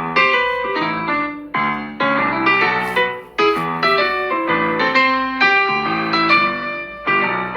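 Samsung Galaxy S23 Ultra ringtone playing: a melody of quick piano-like keyboard notes, with a brief break about three seconds in before it starts again.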